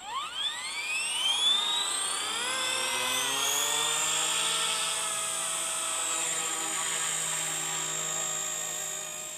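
Microheli S300C micro RC helicopter, with a three-blade main rotor and an AliExpress 2627 brushless motor, spooling up from standstill: the motor whine rises steeply over the first three seconds or so. It then holds a steady high whine with rotor hum as the helicopter lifts into a low hover.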